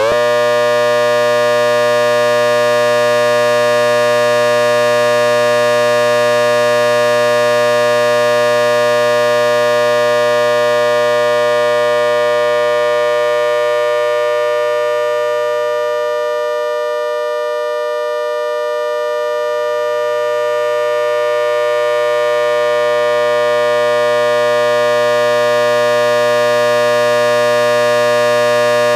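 ACA Hurricane H-130 siren running backwards at full speed, holding a steady multi-tone chord in which the 10-port tone is dominant. The sound fades a little about two-thirds of the way through and then swells back.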